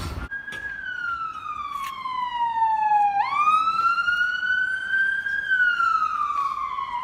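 Emergency-vehicle siren wailing: a single tone slides slowly down, jumps up about three seconds in and climbs, then slides down again.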